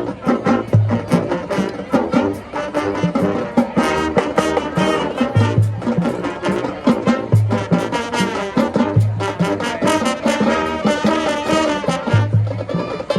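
High school marching band playing: brass and percussion in a fast, rhythmic passage, with punchy low bass notes and crisp drum hits.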